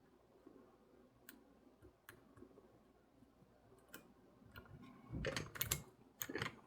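Small sharp clicks of a lock pick and tensioner working in a Master Lock 410 LOTO padlock, a few spaced-out ticks at first, then a louder flurry of clicking and rattling handling noise near the end.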